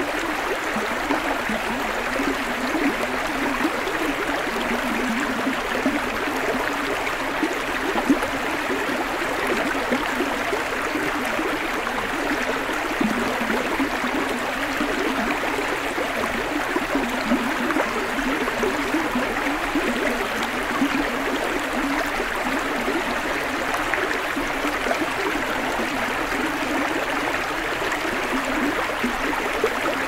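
Shallow, rocky stream flowing steadily over stones and gravel riffles.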